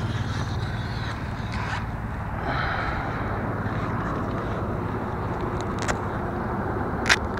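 Steady low rumble of wind and handling noise on a body-worn camera, with rustling of brush and grass, a short click near the end and a sharper, louder click just after it.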